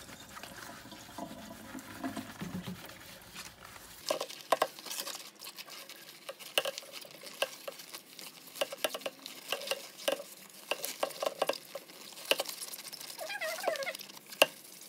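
Rubber-gloved hands scrubbing the inside of a blender jar with a knitted scrub pad: irregular rubbing and scraping strokes that grow busier after about four seconds, with a few short squeaks near the end.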